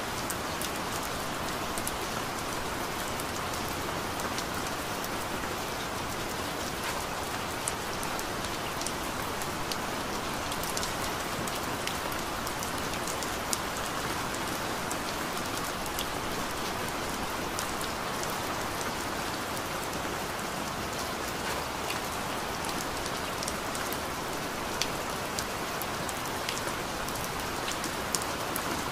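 Steady rain: an even hiss with scattered small drop ticks throughout.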